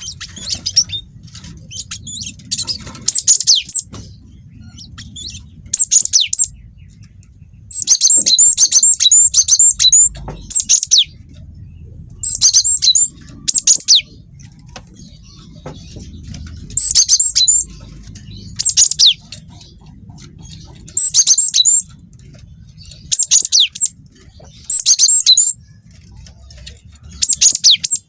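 Cinereous tit (gelatik batu) singing: about a dozen loud, high-pitched chirping phrases with short gaps between them, the longest a rolling run of notes a third of the way in. A faint low hum sits underneath.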